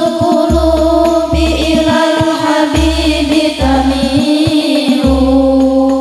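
Young women's voices singing an Islamic devotional song (sholawat) together into microphones, long held melodic lines, over an accompaniment with a deep, regular bass beat.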